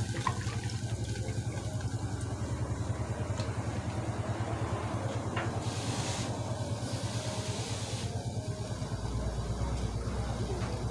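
A small engine running steadily nearby with a fast, even pulse. A brief hiss rises over it about six seconds in.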